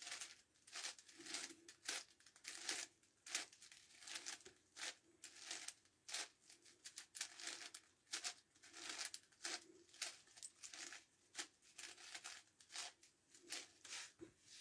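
Plastic layers of a 9x9x9 Rubik's Cube being turned by hand: a faint, irregular run of scraping clicks, a few turns a second.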